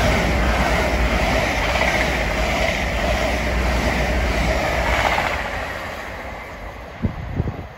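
LNER Azuma electric high-speed train passing close by: a loud rush of air and wheel-on-rail rumble with some clickety-clack from the wheels over the rail joints, fading away after about five seconds. A few short bumps come near the end.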